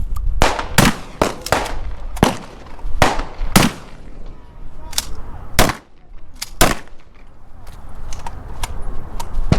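Rifle and pistol shots fired in quick groups during a rifle-to-pistol transition drill: about ten loud, sharp gunshots with echoes in the first seven seconds, then a few fainter shots near the end.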